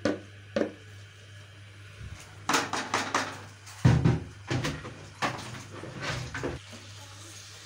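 Wooden spatula scraping and knocking against a nonstick frying pan while marinated meat pieces are stirred in a little oil: a string of scrapes and knocks through the middle, the loudest knock about four seconds in.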